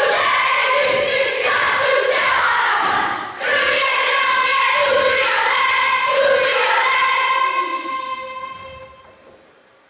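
A children's kapa haka group's voices performing in unison, breaking off briefly a little after three seconds, then a long held part that fades away near the end.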